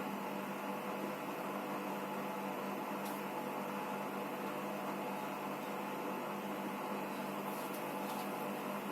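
Electrolux EWT 1377VIW top-loading washing machine running with a steady motor hum.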